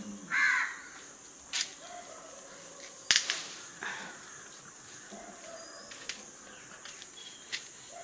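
A crow gives one harsh caw about half a second in, over a steady high-pitched hiss. Several sharp clicks follow, the loudest about three seconds in.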